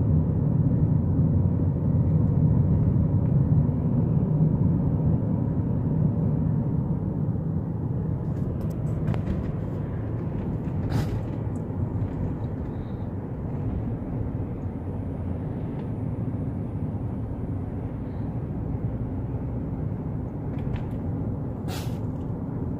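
Steady road and engine rumble inside a moving car's cabin, easing off a little over the first dozen seconds, with a couple of brief clicks about halfway and near the end.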